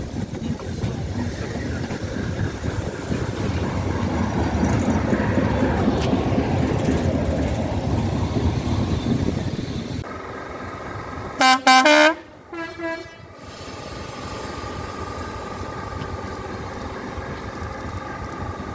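Railway coaches rolling slowly past with a low rumble of wheels and bogies. About ten seconds in this gives way to two short, loud blasts on a locomotive horn, then two fainter blasts, and then the steady hum of the Class 73 electro-diesel locomotive 73128 standing at the head of the train.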